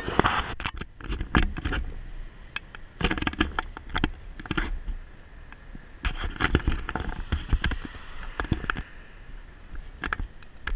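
Wind buffeting an action camera's microphone while riding along a paved bridge lane, with a low rumble and bursts of irregular knocks and rattles from the ride over bumps in the surface.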